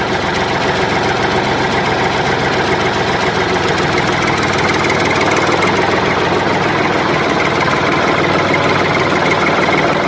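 Small engine running at a steady speed with a fast, even rattle.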